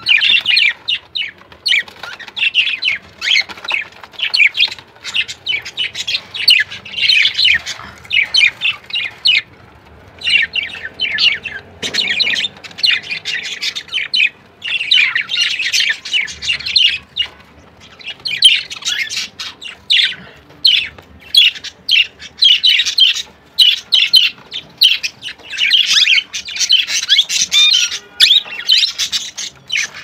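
Show budgerigars chattering and warbling in rapid, high-pitched chirps and squawks, in bouts of a few seconds with short breaks between.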